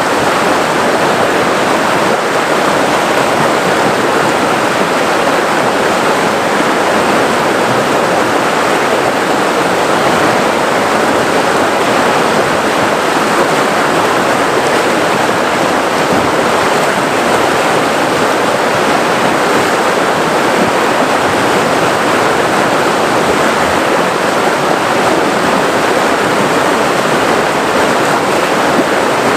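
River water flowing and rushing over rocks: a steady, even rush.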